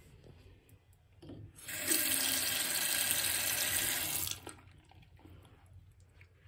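Bathroom faucet running into a 1991 American Standard sink basin. The water starts about a second and a half in, runs steadily for nearly three seconds, then is shut off.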